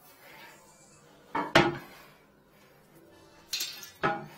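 Hard porcelain clinks and knocks as a detached toilet bowl is handled: two sharp knocks about a second and a half in, and two more near the end.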